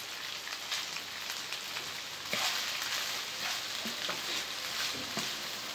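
Julienned cabbage, carrot and chicken sizzling in a hot oiled wok as they are sautéed and tossed with a spatula: a steady frying hiss that grows louder about two seconds in.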